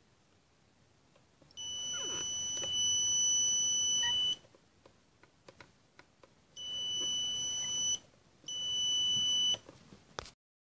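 Piezo buzzer on an Arduino breadboard door-alarm circuit sounding a steady high-pitched beep three times: one of about three seconds, then two shorter ones of about a second each. It is the alarm sounding as the cabinet door is opened.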